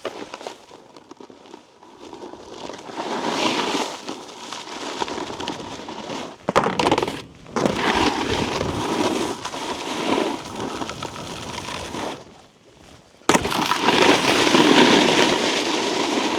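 Snowboard base and edges scraping over icy, slushy snow while riding, loud and uneven, dropping away briefly twice and coming back suddenly and loudly about 13 seconds in.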